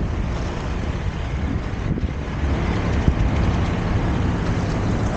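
Inline skate wheels rolling over brick pavers and concrete sidewalk, a steady rumble, with one sharp knock about three seconds in.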